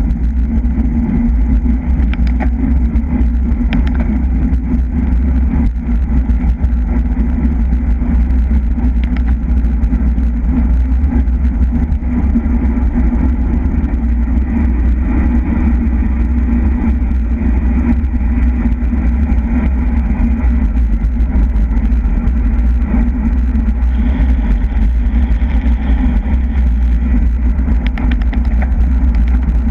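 Steady, loud wind rumble buffeting the microphone of a camera riding on a bicycle at race speed.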